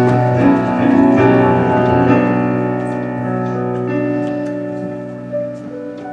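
Piano playing slow, held chords that gradually fade away.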